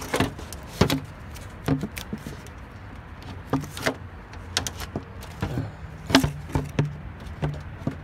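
Irregular knocks, clicks and scrapes of a 2006 Chevy Cobalt's hard plastic air intake duct and rubber boot being wiggled and pulled loose from the engine.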